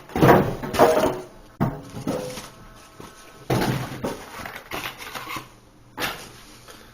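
Knocks, scrapes and rustling as a heavy boxed coffee machine and its packaging are handled, with a few sharp bumps and a short squeak partway through.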